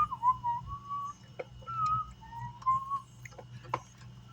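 A man whistling a wandering tune in short held notes, with a few sharp clicks of tools or parts being handled, the loudest near the end.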